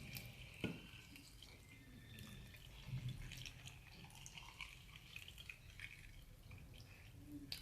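Water being poured into a glass jar packed with peppers, faint, with dripping and a small click a little over half a second in.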